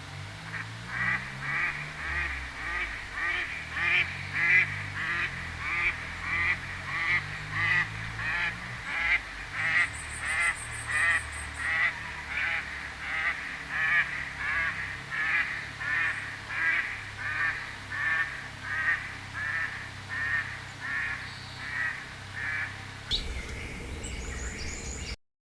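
A bird calling over and over, a harsh honking call repeated at an even pace of about one every half second; the calls stop a couple of seconds before the end.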